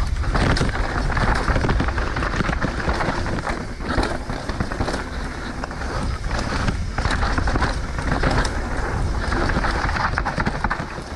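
Wind buffeting the microphone with a steady rush and many small knocks and rattles from a mountain bike rolling over a dirt trail.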